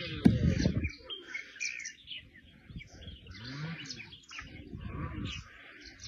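Birds chirping and twittering, with a lower sound underneath that slides up in pitch several times, and a sharp knock just after the start.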